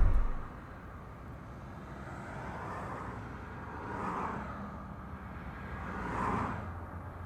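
Steady background ambience with three slow swells that rise and fade over about a second each, the sort of rise and fall that vehicles passing at a distance make.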